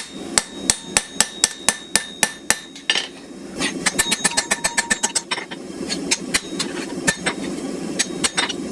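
Hand hammer striking a steel knife blade on an anvil: light finishing blows neatening the edges at a grey heat, in quick runs of strikes with a short pause, some blows ringing. A steady low hum runs underneath.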